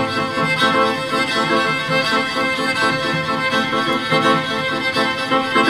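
Live chamber music from a piano trio, grand piano, cello and violin playing together, with the bowed strings holding long notes.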